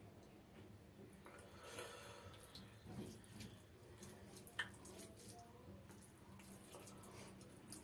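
Faint wet squishing of fingers working rice into mustard hilsa curry on a plate, with a sharp click a little past halfway through.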